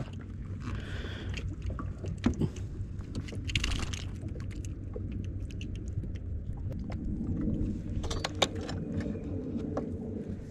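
Steady low rumble of wind and water around a small boat, with scattered clicks, knocks and rustles of the angler handling a freshly caught fish and the rod and reel. A faint low hum comes in about two-thirds of the way through.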